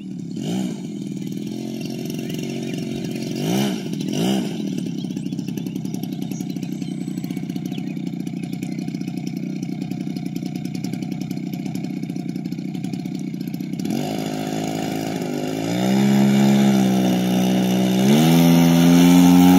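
Engine of a radio-controlled P-47 model plane idling, blipped up briefly three times in the first few seconds. Near the end it is throttled up in two steps, rising in pitch and loudness as the model begins its takeoff run.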